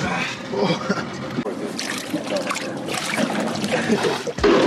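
Water running and splashing across a boat deck, trickling around the tuna and washing through the blood.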